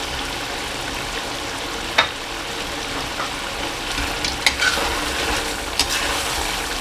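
Chicken gravy sizzling steadily in a metal kadai as it is fried down until the butter separates. There is a sharp clink about two seconds in, and from about four seconds in a slotted metal spatula stirs it, clinking and scraping against the pan.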